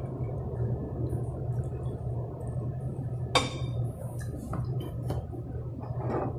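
A fork set down on a plate with one sharp, ringing clink about three seconds in, followed by a few lighter knocks of tableware, over a steady low hum in the room.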